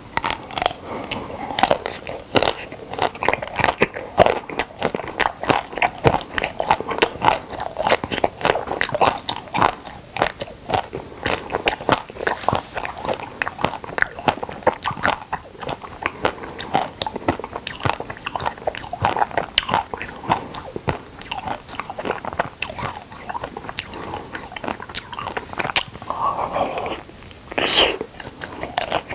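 Close-miked biting and chewing of frozen milk caramel ice cream bars: repeated crunching bites into the hard-frozen bar and chewing, full of sharp little clicks.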